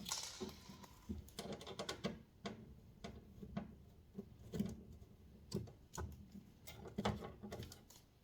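Light, irregular clicks and taps of a screwdriver and hands working the small screws on the back of a head spa unit, with an occasional soft knock.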